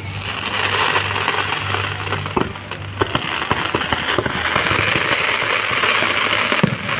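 Fireworks display: a dense run of sharp cracks and pops over a continuous crackling hiss.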